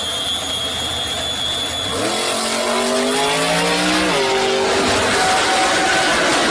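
A drag-racing engine accelerating hard over a steady roar. Its pitch climbs for about two seconds, then drops sharply about four seconds in, like a gear change, and runs on steadier.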